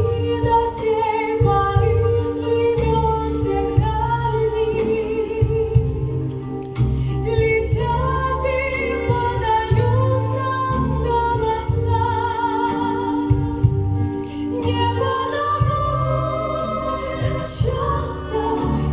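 A song: singing with vibrato over an instrumental backing with a steady low beat.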